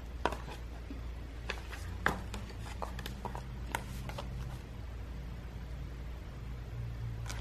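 Pages of a hardcover book being handled and turned: a few short paper rustles and taps, most in the first four seconds, over a faint steady low hum.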